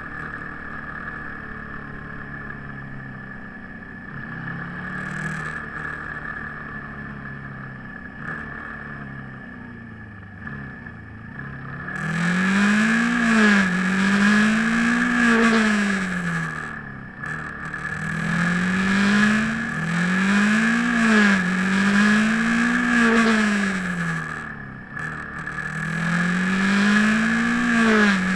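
Motorcycle engine heard from an on-board camera. It runs steadily and fairly quietly at first, then about halfway through gets louder, its pitch rising and falling again and again as the bike accelerates and eases off, with wind rush. A steady high whine sits under it throughout.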